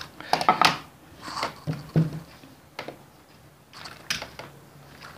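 Pliers and stripped copper wire being handled against a plastic switchboard plate while wire ends are twisted and tightened: irregular clicks and taps with short quiet gaps.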